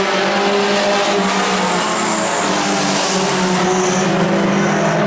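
A pack of mini stock race cars on a dirt oval, several small engines running together at a steady pitch that shifts only slightly, with a constant hiss of noise over them.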